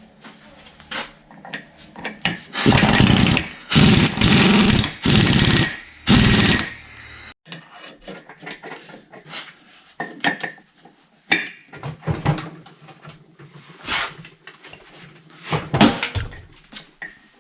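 Handheld power tool run in several short bursts in the first half, then light clicks and knocks of parts and tools being handled during engine reassembly.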